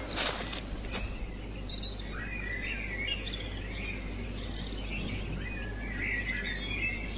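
A few footsteps in the first second, then small birds chirping and twittering repeatedly over a steady outdoor background hum.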